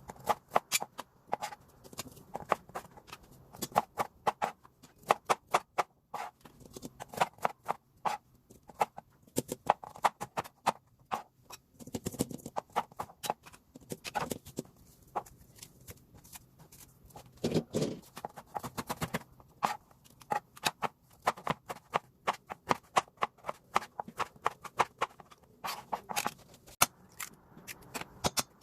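Knife chopping on a cutting board, in quick runs of taps broken by short pauses.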